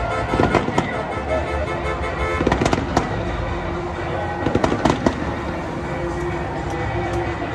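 Fireworks going off in three quick clusters of sharp bangs about two seconds apart, with music playing underneath.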